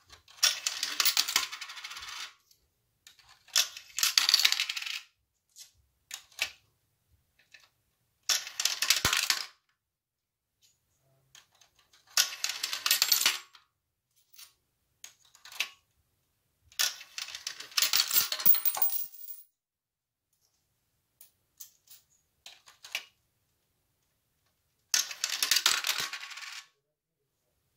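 Coins clattering and rolling through a LEGO Mindstorms EV3 coin sorter, in about six bursts of a second or two each, a few seconds apart, with fainter clicks between.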